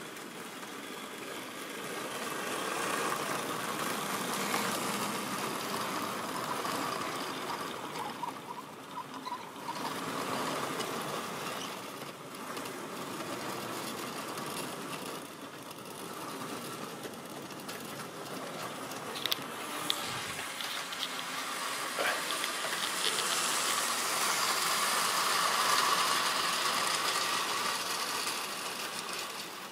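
Tri-ang model railway train of vans running along the track, a steady rattle and clatter of small wheels over rail joints and points. It grows louder as the train passes close about three to five seconds in and again late on, with a few sharp clicks just after the middle.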